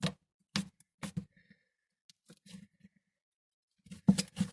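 Cloud slime being handled, giving a string of short, sharp pops and clicks with short silences between them and a louder close pair near the end.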